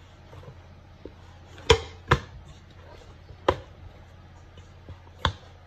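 Dough being kneaded by hand in a stainless steel bowl, knocking against the metal four times at uneven intervals, each knock sharp and short.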